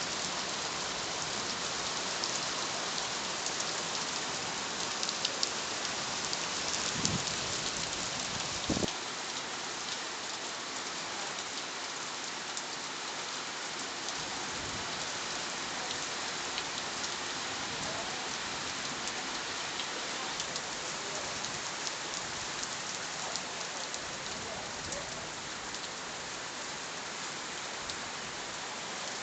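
Steady rain falling, with many individual drops pattering on surfaces; it eases slightly about nine seconds in.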